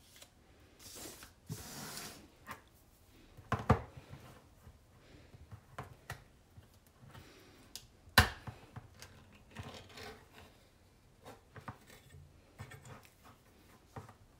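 Small tins being handled on a wooden tabletop: rustling and knocks, then a sharp crack about eight seconds in as the ring-pull of a tin of dolmas breaks its seal, followed by light scraping and clicks as the metal lid is peeled back.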